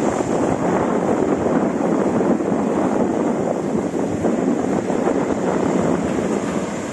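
Choppy sea surf breaking and washing up onto a sandy beach in a steady rush, with wind buffeting the microphone.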